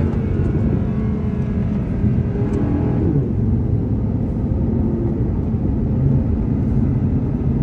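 Audi R8 V10 engine running hard under acceleration on a race track straight, with tyre and wind noise. The pitch of the engine shifts about three seconds in.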